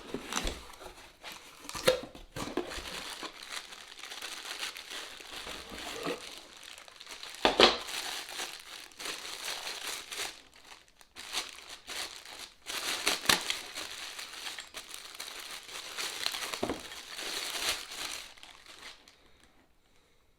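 Tool packaging being opened by hand: boxes and wrapping crinkle, crumple and tear, with scattered sharp snaps. It dies away near the end.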